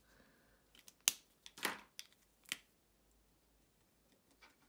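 Stampin' Write marker pens being handled and uncapped: a few sharp plastic clicks and a short scratchy rub in the first couple of seconds, then faint light ticks of a felt tip dabbing on a clear stamp.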